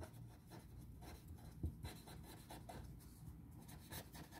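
Pen writing on paper: faint, quick scratchy strokes of joined-up handwriting.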